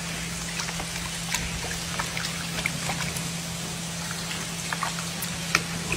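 A steady low machine hum under a faint trickle of water, with scattered small drips and clicks.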